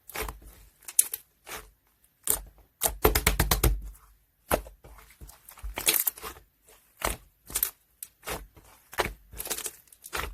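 Slime being squished and stretched, making short crackling pops and clicks at irregular intervals, with a quick run of pops about three seconds in.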